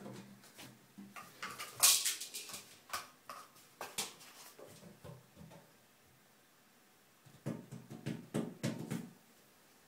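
A kitten's claws and paws scrabbling and skittering on the hard enamel of an empty bathtub: a run of quick scratches and taps, loudest about two seconds in, then a pause and another flurry near the end.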